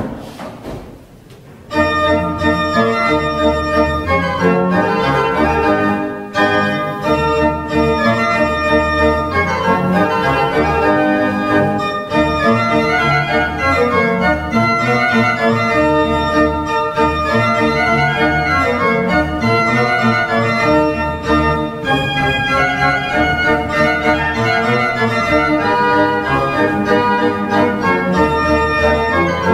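The 1751 Martin Podkonický baroque pipe organ playing a 16th-century Renaissance dance in full sustained chords over a low bass line. The music stops briefly at the start, its echo dying away, and starts again about two seconds in.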